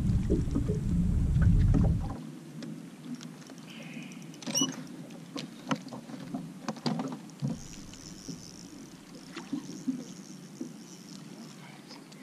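Wind buffets the microphone for about two seconds and stops abruptly. Then water sounds against a small boat's hull, with scattered light clicks and knocks from the rod, reel and landing net while a fish is being landed.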